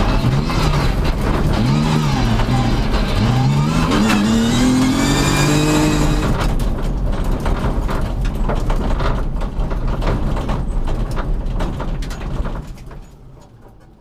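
Rally car engine heard from inside the cockpit, revving up and down through the gears for about six seconds. Then the engine note falls away, leaving road noise with rattles and clicks, and everything fades out near the end.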